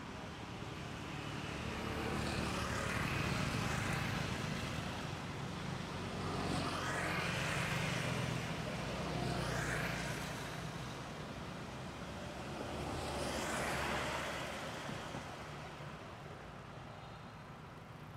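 Road vehicles passing one after another: a low engine rumble that swells and fades three times, with the loudest passes a few seconds in and again just before the middle.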